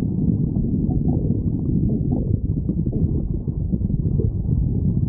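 Human stomach growling: a continuous low, muffled rumble with short gurgles rising through it now and then.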